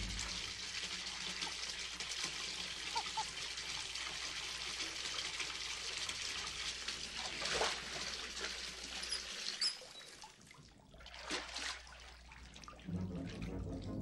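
Water running into a bathtub, a steady hiss over a low hum, which stops abruptly about nine seconds in. Quieter water sounds and small splashes follow.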